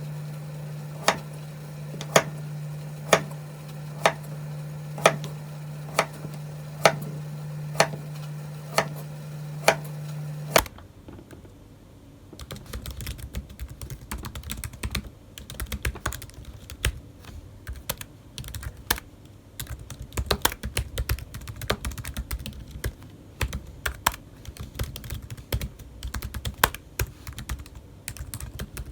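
Typing on a computer keyboard: a fast, uneven clatter of keystrokes filling the latter two-thirds. Before it, a steady low hum with a sharp click about once a second.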